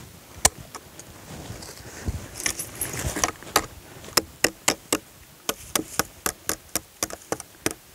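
Steel trap chain and tie wire jingling and clinking against a log as the wire is twisted tight to fasten the chain to a drag stick. About three and a half seconds in, a run of sharp metallic clicks sets in, three or four a second.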